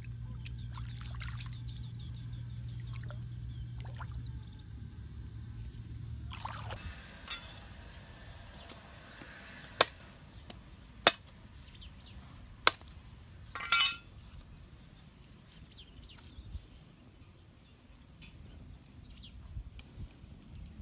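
A steady low hum, then three sharp knocks about a second and a half apart followed by a short rasping burst: a knife striking fish on a concrete floor.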